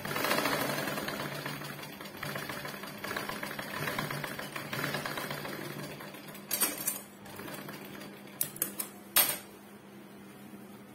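Sewing machine running as it stitches a seam through fabric, picking up again in several spurts, then stopping about six seconds in. A few sharp clicks follow in the second half.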